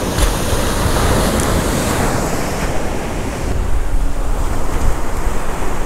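Surf washing steadily onto the beach, with wind buffeting the microphone in an uneven low rumble.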